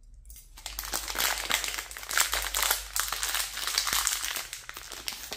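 Plastic packaging crinkling, with dense quick crackles, as a small bag is handled and opened. It starts about half a second in and dies away near the end.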